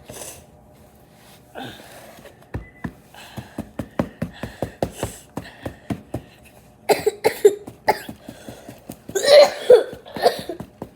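A child coughing: a few hard coughs about seven seconds in and a louder bout near the end. Before them comes a run of quick taps, several a second.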